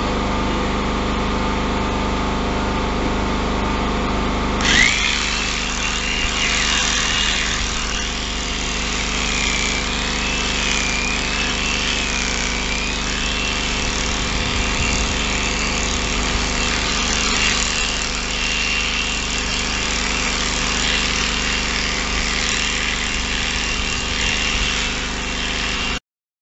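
Electric sheep-shearing handpiece running as it cuts through the fleece, a steady mechanical hum with a high whine that wavers as the cutter moves. About five seconds in the sound changes abruptly to a brighter, hissier running, and it cuts off suddenly near the end.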